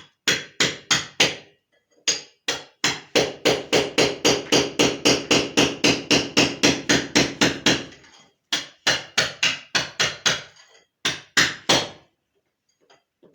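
Hammer blows in fast, even runs of about three to four strikes a second, broken by short pauses. A ringing tone sounds under the long run in the middle.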